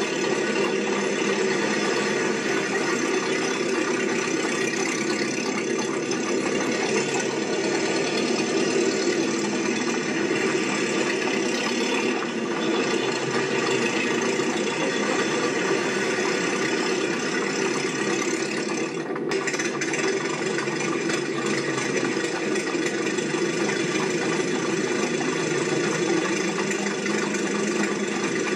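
A steady mechanical running noise with a rattle, like an engine idling, holding level throughout.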